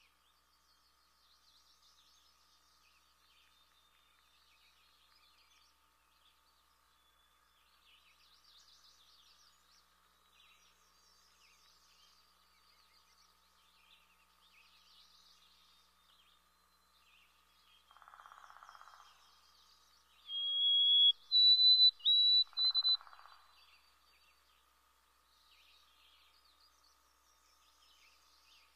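Songbird singing a clear whistled song about twenty seconds in: one held note, then a jump to a higher note repeated three times. Beneath it, faint scattered chirping of other birds and a steady faint drone.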